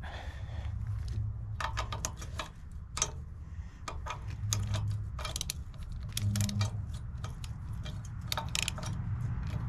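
Irregular light metal clicks and clinks from a trailer ball coupler's latch mechanism being worked by hand, over a low steady hum.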